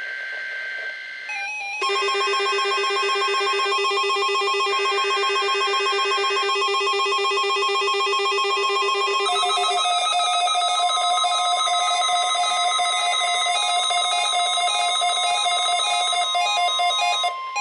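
NOAA Weather Radio test signal: three bursts of SAME digital header data, a buzzy two-tone warble, followed by the steady 1050 Hz warning alarm tone starting about ten seconds in. From about two seconds in, the alarms of several weather radio receivers set off by the signal sound together as overlapping, repeating electronic beeps and warbles, cutting off near the end.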